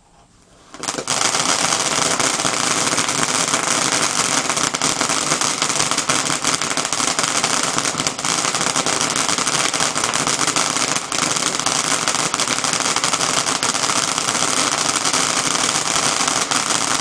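A consumer ground fountain firework ignites about a second in and keeps spraying: a loud, continuous hiss thick with rapid crackling.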